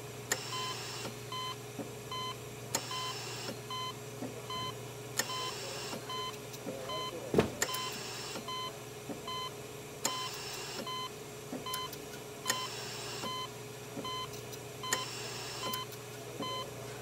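Electronic beeping: a short, pure beep repeating a couple of times a second over a steady low hum. A brief hiss comes about every two and a half seconds, and a single sharp knock about seven seconds in is the loudest sound.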